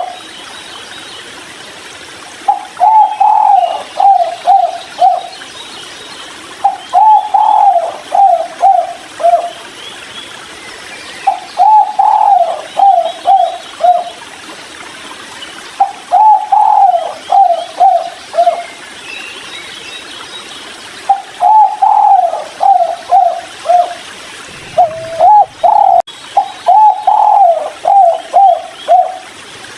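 Spotted dove (tekukur) cooing, the 'kuk 3' song type: a phrase of four or five short coos repeated about every four to five seconds, with two phrases running close together near the end.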